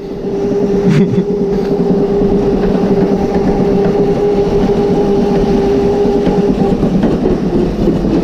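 Razor Crazy Cart electric drift kart driving at steady speed: the electric motor gives a steady whine over the rumble of its small wheels rolling across a tile floor.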